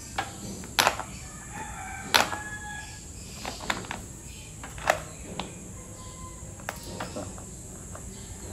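Sharp metallic clicks from a cycling shoe's cleat snapping into and twisting out of a clipless SPD pedal, about eight irregular clicks. The unclipping is still stiff and hard.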